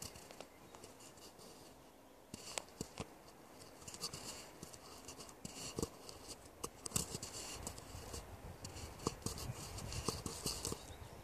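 Scratchy rustling with irregular small clicks and taps, coming and going in loose clusters.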